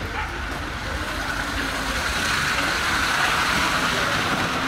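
Car driving along: a steady low road rumble with a hiss that swells in the middle and eases off near the end.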